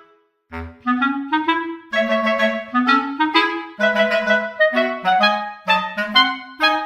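Background music: a melody of short, detached notes, about three or four a second, with a brief break just after the start.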